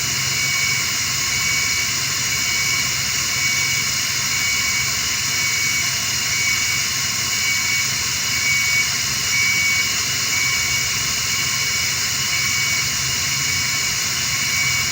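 Steady loud hiss of NICU bedside equipment with a low hum underneath, and a short high beep from a monitor repeating about every second and a half.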